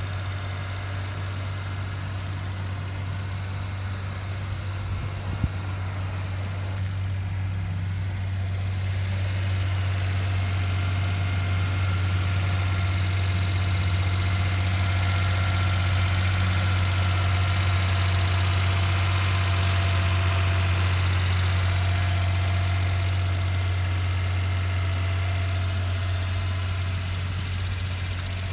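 Suzuki Carry kei truck's three-cylinder engine idling steadily with a low, even hum. It grows louder and brighter through the middle, with one sharp click about five seconds in.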